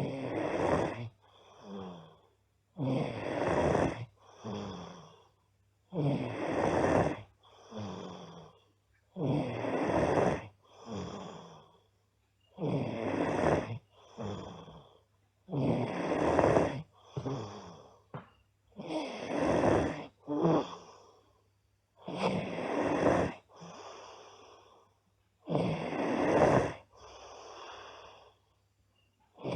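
A girl snoring loudly. Each loud snore is followed by a softer one, and the pair repeats steadily about every three seconds.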